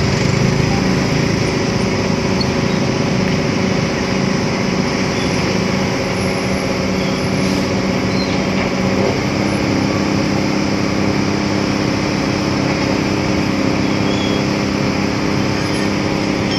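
Engines running steadily, with a hum of several tones that shifts to a slightly higher note about nine seconds in.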